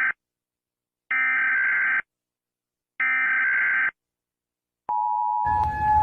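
Emergency Alert System SAME header: short bursts of shrill, buzzy digital data tones, each about a second long with a second's silence between. About five seconds in, the steady two-tone EAS attention signal starts, and a rough, noisy layer joins it half a second later.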